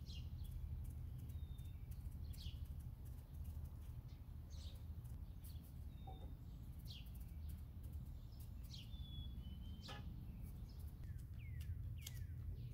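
Small birds chirping: short downward-sweeping calls about every two seconds, with a few brief whistled notes in between, over a steady low background rumble.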